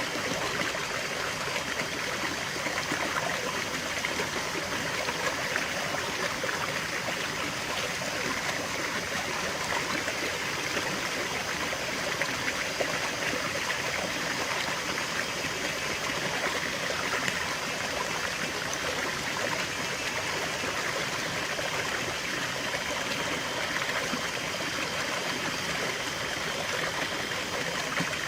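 Water running steadily over rocks in a stream or small cascade, an even rushing and babbling without breaks.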